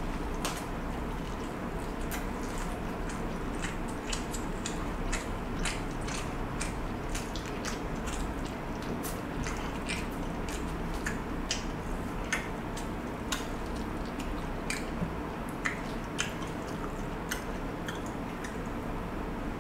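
Close-up eating mouth sounds, chewing and sipping a drink from a glass: many irregular sharp wet clicks and smacks over a steady low hum.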